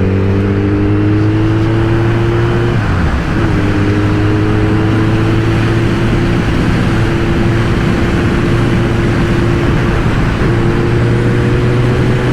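Motorcycle engine running under way, its pitch climbing slowly as it pulls. About three seconds in it drops back to a lower pitch, like an upshift, and climbs again. Steady wind rush runs underneath.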